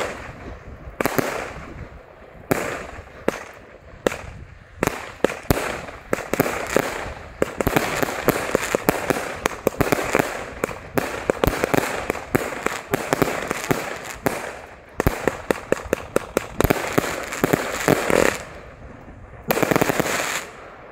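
Operaen 104-shot firework battery (cake) with 23 mm tubes firing: a long run of sharp bangs from its shots and bursts, coming thickest in a rapid volley through the middle, with a last burst shortly before it stops near the end.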